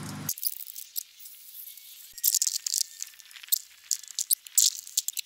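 Hands scrubbing a vacuum part in a bucket of soapy water: irregular wet swishes, squelches and crackling suds. A hose spray cuts off right at the start.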